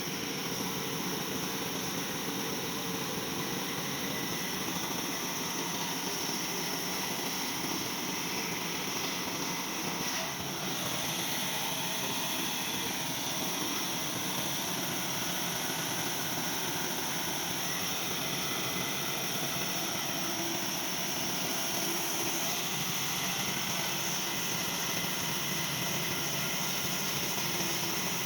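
Sawmill machinery running steadily, a continuous machine noise with a high hiss.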